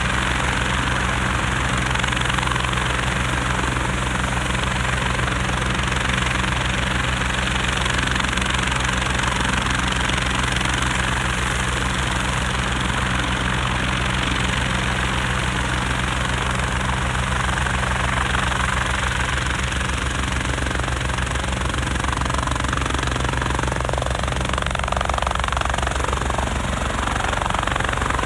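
Bell 430 twin-turbine helicopter running on the pad with a rapid, rhythmic main-rotor beat over a high turbine whine. In the last several seconds the sound shifts and the whine rises slightly as power comes up and it lifts off into a hover.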